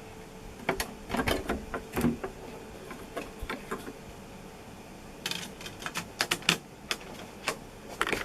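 Sharp plastic clicks and knocks from the controls and CD compartment of an Aiwa CDS-A190 portable CD radio cassette player being handled: one cluster about a second in, another about five seconds in, with single clicks between.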